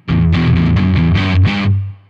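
Electric guitar played through the Zoom G1Four's DZ Drive high-gain patch with its cab simulator on: heavily distorted chords in a choppy rhythm, letting go and dying away just before the end.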